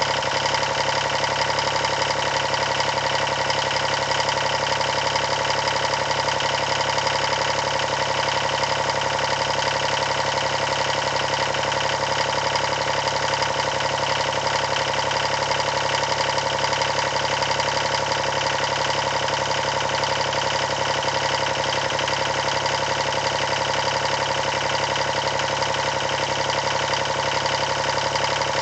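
Yanmar 336D tractor's three-cylinder diesel engine running steadily at constant speed.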